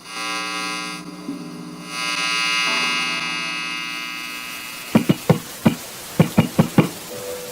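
A many-toned electronic buzzing drone starts suddenly and slowly fades. About five seconds in, an uneven beat of sharp knocks begins: the opening of a noise-music piece built from machine-like sounds.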